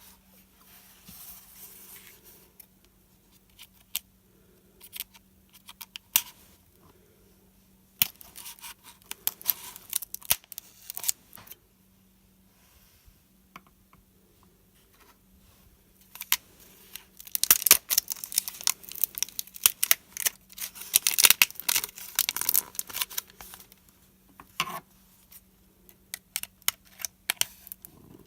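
Scissors snipping and scraping through packaging, with some tearing: scattered cuts at first, then a dense run of quick snips and tearing in the second half. A faint steady hum sits underneath.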